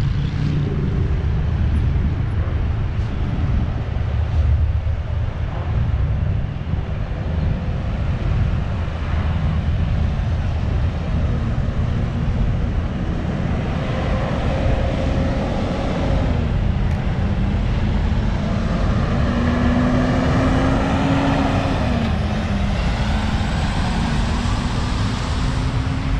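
Road traffic passing on a multi-lane road: a continuous low rumble with tyre hiss that grows in the second half. An engine's pitch climbs, drops suddenly about two-thirds of the way through as it shifts gear, then climbs again as a truck passes close.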